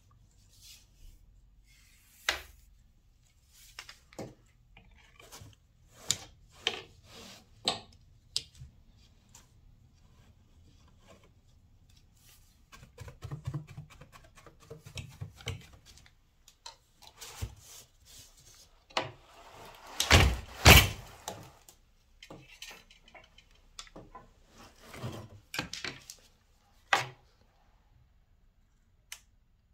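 Wooden floor loom worked by hand during weaving: scattered clicks and knocks of the wooden stick shuttle and loom parts, a few seconds of rubbing against the warp threads in the middle, and two loud wooden thumps about twenty seconds in.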